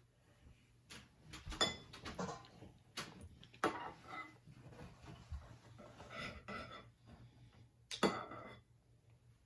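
Spoons knocking and scraping against dishes while dessert is eaten: a few sharp clinks, the loudest three coming about a second and a half in, near the middle and near the end.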